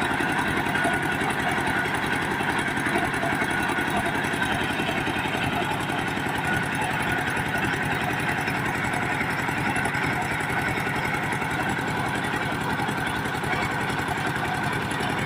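Diesel engine of a mobile sawmill running steadily at a constant speed.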